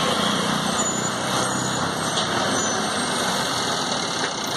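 Heavy truck engine running steadily as a Scania V8 tractor unit slowly hauls a long multi-axle modular trailer past.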